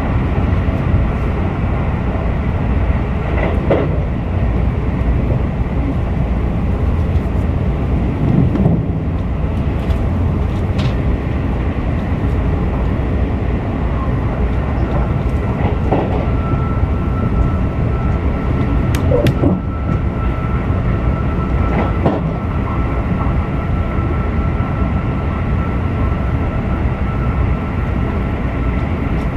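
Keisei Skyliner train running at speed, heard from inside the passenger cabin: a steady rumble and rush of wheels on rail. A faint steady whine joins about halfway through.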